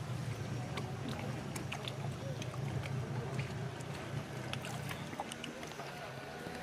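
Outboard motor of a wooden river longboat running with a steady low hum in the shallows, which fades about five seconds in. Under it runs the wash of river water, with scattered knocks and clicks.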